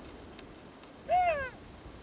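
A single short animal yelp, a little past halfway, rising briefly and then falling in pitch.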